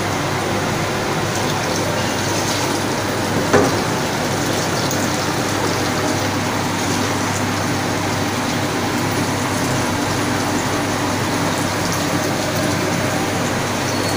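Blended spice paste sizzling and bubbling steadily in a wok, with water just added to it. A single knock about three and a half seconds in.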